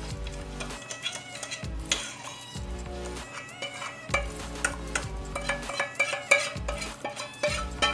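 A spoon scraping and clinking as thick chili with chopped hot dogs is scooped from a bowl and dropped into a casserole dish, with background music and a steady low beat under it.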